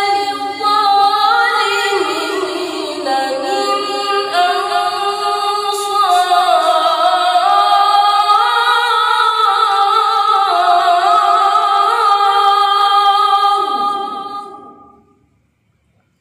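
A boy's voice reciting the Quran in melodic tilawah style: one long phrase on a single breath, ornamented with gliding and wavering pitch, that fades out about fifteen seconds in.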